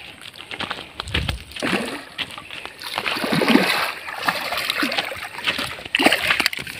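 A hooked toman (giant snakehead) thrashing at the surface against the line, splashing and slapping the water, loudest around the middle.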